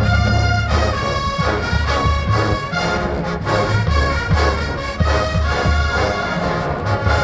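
College marching band playing a Motown number: loud brass with trombones and trumpets over a pulsing low bass line and a steady drum beat.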